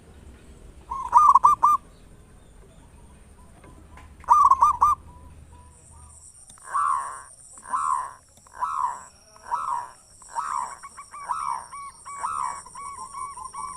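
Zebra dove (perkutut) cooing: two short, rapid bursts of ringing coos a few seconds apart, then a run of about eight evenly spaced coos, roughly one a second, over a steady high-pitched buzz.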